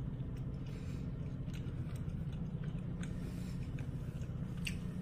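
Gummy candy being chewed and a plastic candy bag handled, giving a few faint, scattered clicks and light crinkles over a steady low hum.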